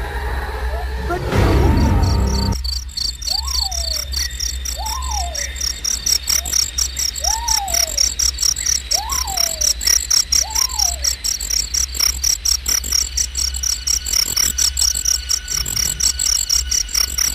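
Crickets chirping in a fast, steady pulse over a low hum. From about three to eleven seconds in come five short calls, each rising then falling in pitch, about two seconds apart.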